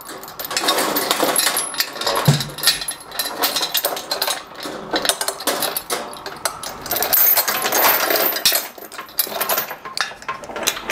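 Steel lifting chain rattling and clinking in irregular bursts as it is handled, passed through and locked back on itself to rig a load for lifting.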